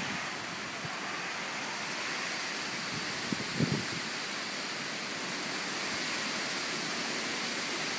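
Heavy hurricane rain pouring down, a steady even hiss, with a brief low sound about three and a half seconds in.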